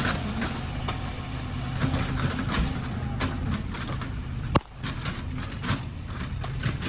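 Heavy diesel machine engine running steadily, with scattered clanks and knocks over it and one sharp click about two-thirds of the way through.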